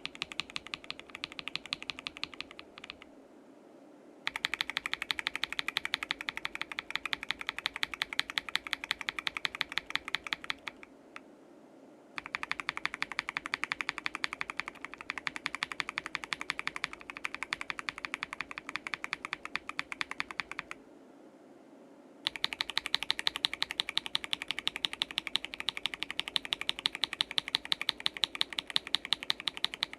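Fast typing on a mechanical keyboard fitted with Akko CS switches (KBD67 Lite case, polycarbonate plate, gasket mount): rapid keystrokes in three runs, broken by brief pauses about three, eleven and twenty-one seconds in.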